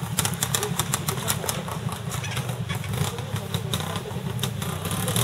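Classic trials motorcycle engine running steadily at low revs as the bike is ridden slowly over rocks in a trials section.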